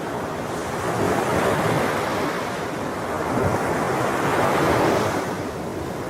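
Ocean waves washing in, swelling twice: once about a second in and again around four to five seconds in.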